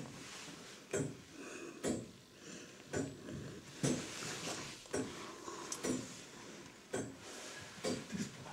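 Mechanical tower clock movement ticking, a sharp tick about once a second from its escapement as the clockwork runs.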